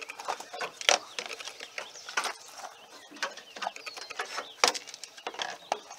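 Hard plastic lower grille panel of a 1994 Chevy Cheyenne 1500 clicking and clattering against the truck's front end as it is lifted over its lip and slid out. The clicks come irregularly, with the loudest knocks about a second in and just before the five-second mark.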